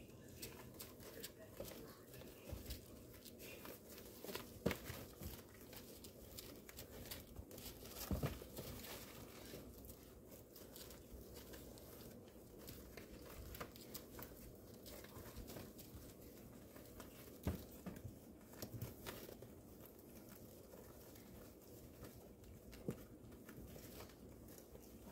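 Chihuahua puppies scrambling over crinkly puppy training pads in a plastic tub: faint rustling and crinkling with scattered small knocks, a few of them louder.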